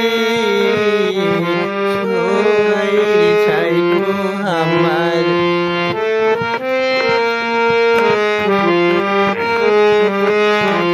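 Harmonium playing a melody, the right hand stepping from note to note over a held low note.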